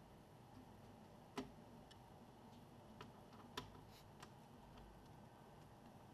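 A few faint, sharp clicks and taps of small laptop parts being handled, four in all with the loudest about a second and a half in, over near silence.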